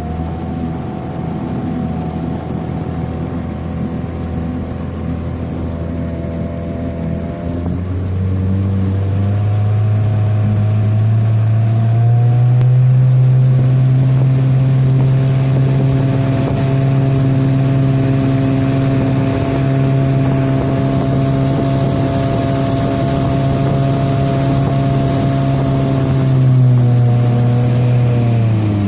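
Boat motor running at low speed, then throttled up about eight seconds in so its pitch climbs over a few seconds and holds steady, before easing off again right at the end.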